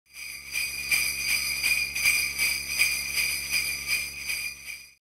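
Sleigh bells jingling in an even shaking rhythm, roughly three shakes a second, fading in and cutting off abruptly just before the end.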